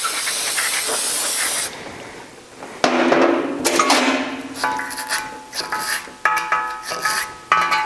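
Aerosol spray can hissing steadily for about the first second and a half, then cutting off. From about the middle on, background music with plucked strings plays.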